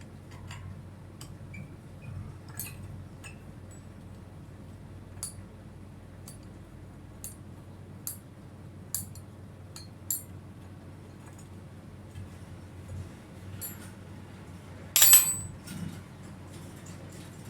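Small metal pieces clinking and tapping now and then, with one much louder ringing metallic clank about 15 seconds in, over a steady low hum.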